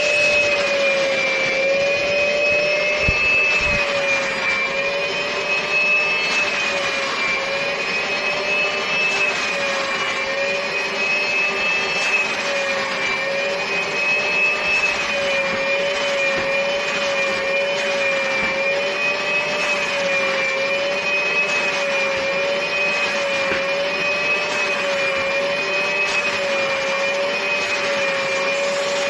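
Karcher Puzzi 8/1 C spray-extraction vacuum cleaner running, a steady high motor whine whose pitch wavers gently up and down every second or so.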